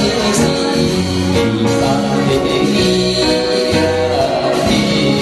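A man singing into a microphone over instrumental accompaniment, with held notes, a steady bass line and cymbal strokes.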